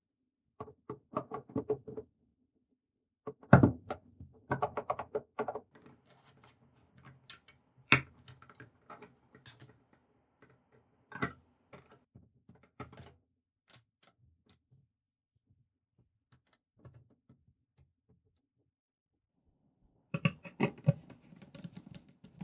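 Intermittent clicks, taps and small knocks of computer parts being handled and fitted together, coming in short clusters with a sharp click about eight seconds in and quiet gaps between.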